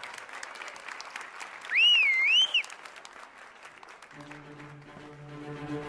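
Studio audience clapping, with one loud, wavering whistle from a spectator about two seconds in. Near the end, music starts with steady held low notes.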